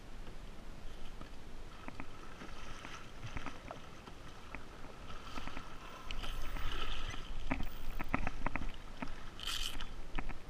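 Water slapping around a plastic sit-on fishing kayak, with many sharp clicks and knocks from fishing gear being handled on deck. It gets louder about six seconds in.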